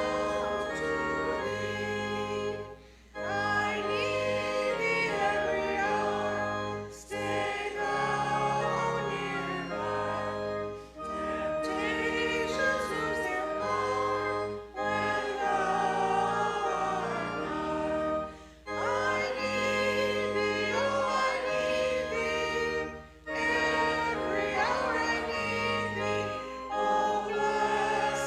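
A hymn sung by a group of voices with sustained instrumental accompaniment. The phrases last about four seconds each, with brief breaks between them.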